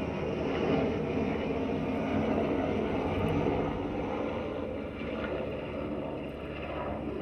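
A helicopter flying over, with a steady low engine-and-rotor drone that slowly fades as it moves away.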